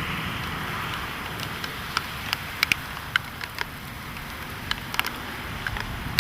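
Car driving in a storm, heard from inside: a steady rush of road and rain noise, with scattered sharp taps of raindrops striking the car at irregular intervals.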